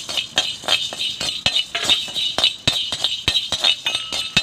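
Steel spoon scraping and clinking against a dry iron kadai while chana dal and urad dal are stirred and dry-roasted, the lentils rattling across the pan. Quick, irregular scrapes and taps, about three or four a second.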